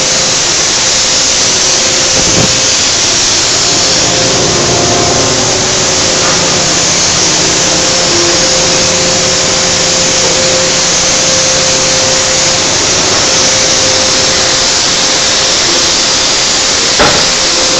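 Loud steady rushing hiss of forging-hammer shop machinery running, with a faint steady hum, and one sharp hammer blow near the end.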